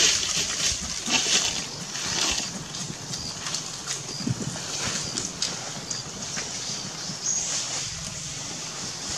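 Rustling and crackling in dry fallen leaves as macaques shift about, with a few short high chirps.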